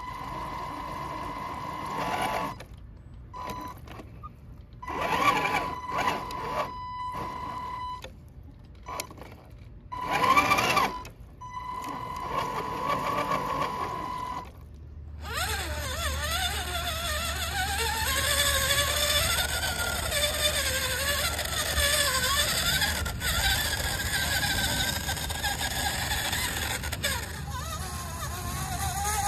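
Electric drive motor of a radio-controlled CC01 truck whining in several short bursts of throttle while its wheels stay stuck in the mud. From about halfway, background music with a steady bass takes over.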